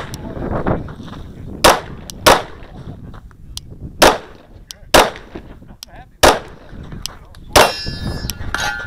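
About seven pistol shots from a 9mm Glock 19, each a sharp crack with a short echo, fired in a string of rough pairs about a second apart during a timed action pistol stage.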